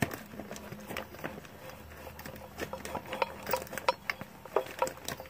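Hanging steel chain clinking and rattling in irregular light taps, with short metallic rings, as an electrical cord is fed past it and up through a hole in the wood; the clinks come thickest in the second half.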